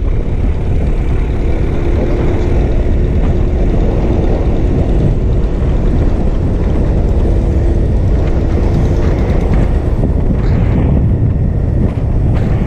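Motorcycle under way on the road: steady rush of wind on the microphone with the engine running underneath, without a break.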